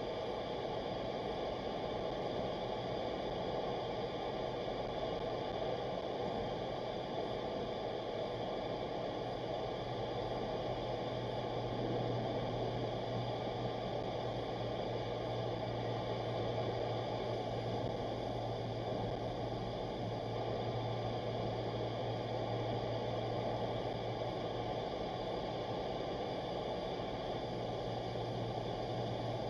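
Steady road and engine noise heard inside a car's cabin while driving through a highway tunnel, with a low hum that grows stronger about nine seconds in.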